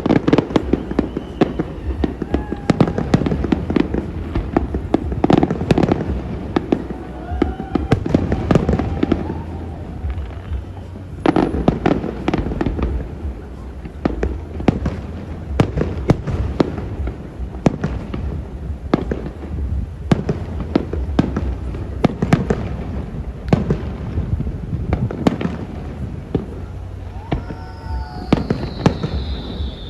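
Fireworks display: a continuous run of bangs and crackling pops, with people's voices at times. Near the end there is a high falling whistle.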